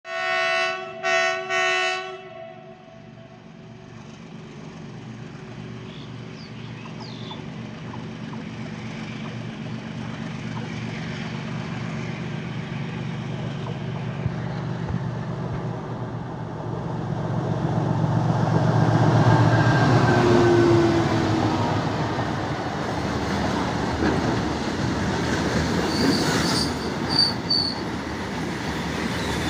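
Diesel locomotive horn sounding a few short blasts. Then the WDG-4G diesel locomotive's engine grows steadily louder as it approaches and passes. After it come the rumble and clatter of loaded tank wagons rolling by, with brief high wheel squeals near the end.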